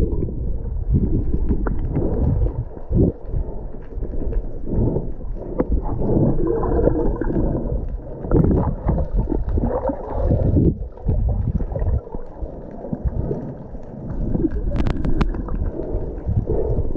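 Muffled sloshing and gurgling of water around a camera held underwater by a swimmer, rising and falling unevenly, with a few short clicks about fifteen seconds in.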